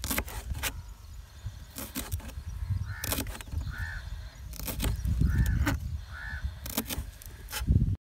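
Kitchen knife chopping green onion stalks on a plastic cutting board: a run of sharp, unevenly spaced knocks as the blade cuts through to the board. Crows caw several times in the background.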